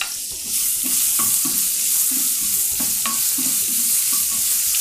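Freshly added chopped onions sizzling in hot oil with tempered spices in a stainless steel kadai, the sizzle growing louder about half a second in. A wooden spoon stirs them, scraping and knocking against the pan again and again.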